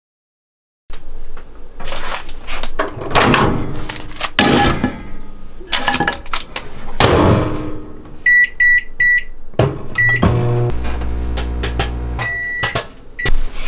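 Microwave oven being operated: handling and clatter, then four quick keypad beeps, another single beep, a brief low hum of the oven running, and more beeps near the end.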